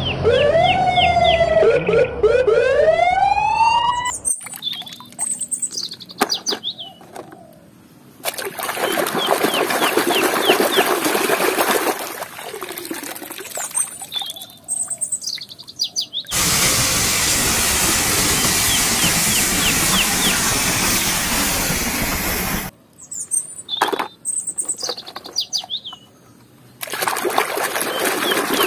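A police siren wails in rising and falling sweeps, then cuts off about four seconds in. After that comes water splashing and pouring in a washtub as toys are dipped and rinsed, in several spells, with birds chirping in the quieter gaps.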